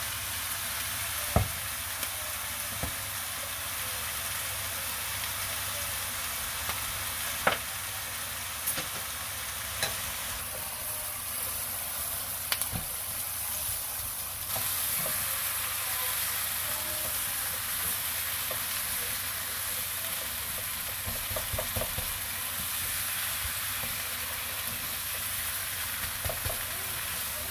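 Smoked duck and vegetables sizzling in a hot coated wok while a silicone spatula stirs and turns them, with a few sharp knocks against the pan. The sizzle grows a little louder about halfway through.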